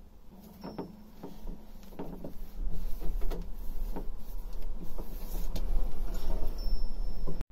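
Irregular metallic clicks and knocks of a hand tool working at a canister filter housing in an engine bay, over a low rumble that swells after a couple of seconds and cuts off suddenly near the end.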